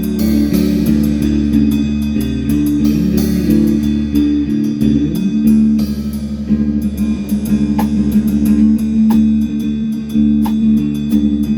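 Instrumental band music: guitar and bass guitar playing sustained notes, with a drum kit keeping time on cymbal or hi-hat strokes.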